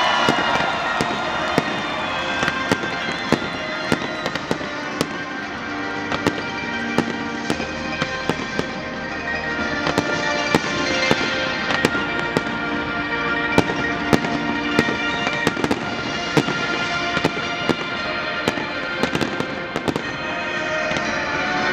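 Aerial fireworks display: a rapid, irregular string of bangs and crackling reports from rising comets and bursting shells, several a second, with no let-up.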